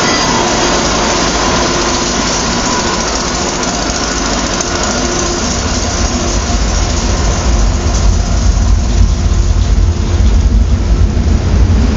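SEPTA Silverliner electric commuter railcar moving past at very close range, its electrical equipment giving a steady hum over running noise. From about halfway a louder low rumble of wheels on rails builds as the train cars roll by.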